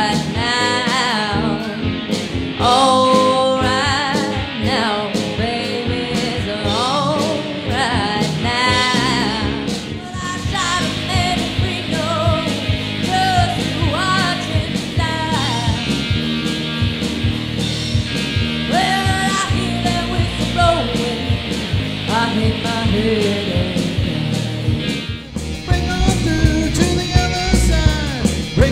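A rock band playing with a singer over electric guitar, bass and drums. The music changes abruptly after a short dip near the end, as from one song to another.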